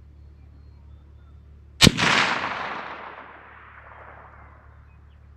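A single rifle shot about two seconds in, its report echoing and fading away over about two seconds.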